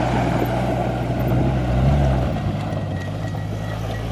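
Jeep Wrangler JK engine running under load while driving off-road, revving up briefly about two seconds in and then settling, over a steady rushing noise.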